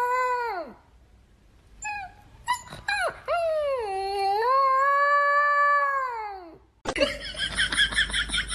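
A dog howling: a drawn-out howl that falls away, a few short yips, then a second long howl that dips and rises before dropping off. About seven seconds in it cuts to a different sound, a rapid chattering pulse.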